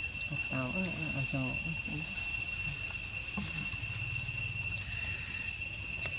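Insects droning steadily in high, even tones, with a few short low vocal sounds in the first two seconds.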